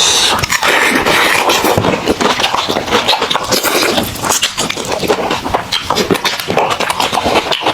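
Close-miked chewing and lip-smacking of meat: a rapid, irregular stream of wet clicks and small crunches.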